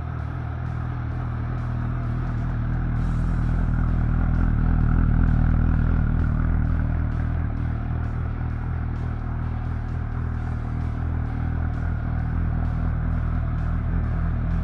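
Suzuki GSR750's inline-four engine idling steadily through an aftermarket Yoshimura exhaust muffler, with no revving. It grows louder around the middle, then eases a little.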